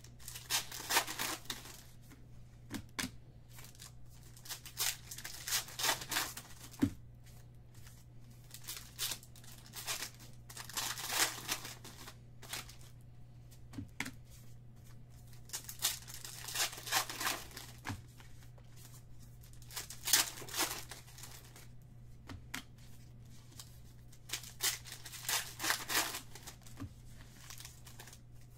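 Foil trading-card pack wrappers being torn open and crinkled by hand, one pack after another, with a burst of tearing and crinkling every five seconds or so and a few single light clicks between.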